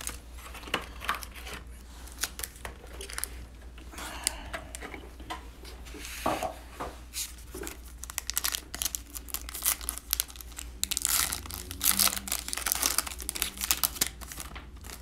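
Plastic-foil wrapper of an NBA Hoops trading-card pack crinkling in the hands and being torn open. The crackles are irregular, and they grow denser and louder in the last several seconds.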